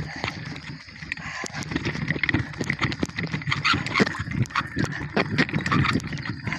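Bicycle rattling and clattering over a rough offroad trail, with many irregular knocks and clicks.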